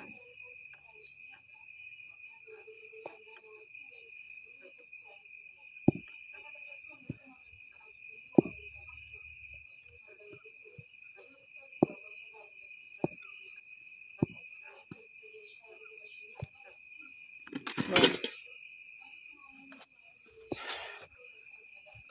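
Crickets chirping steadily in several high-pitched layers, with sharp knocks every few seconds as a wooden stirring stick strikes a metal pot of stiff maize porridge (ugali) being worked over an open fire. A brief louder burst of noise comes most of the way through.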